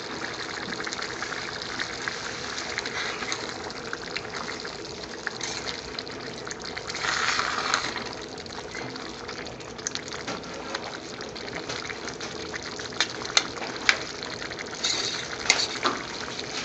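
Thick gravy bubbling in a steel pan on a gas stove over a steady rushing hiss, stirred with a metal ladle. There is a louder sloshing about seven seconds in, and several sharp clicks of the ladle against the pan near the end.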